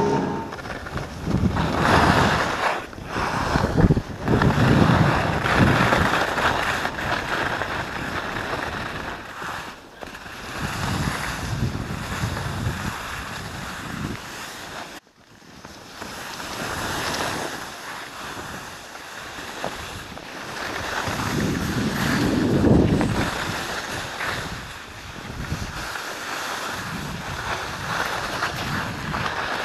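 Skis scraping and hissing over snow on a downhill run, with wind buffeting the microphone; the rush swells and fades every couple of seconds as the skier turns, dropping out briefly about halfway through.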